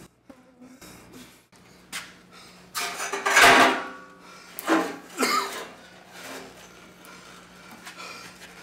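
A badly beaten man's heavy, pained breathing: ragged gasps and groans, the loudest about three and a half seconds in, with two shorter ones just after, over a low steady hum.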